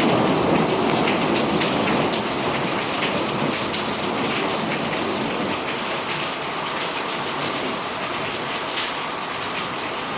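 Torrential rain pouring steadily, with the tail of a low thunder rumble fading out in the first couple of seconds.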